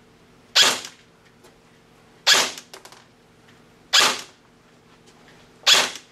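Elite Force M4 CQB Sportline airsoft electric gun (AEG) firing single shots through a chronograph for a velocity test: four sharp shots about 1.7 seconds apart, each with a short tail. The chronograph reads about 320 fps.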